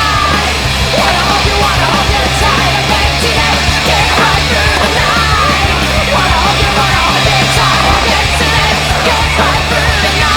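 Loud punk rock music with distorted guitars, a steady bass line and a shouted vocal.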